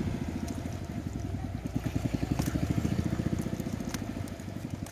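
A small engine running steadily with a fast, even putter, with a few light clicks over it.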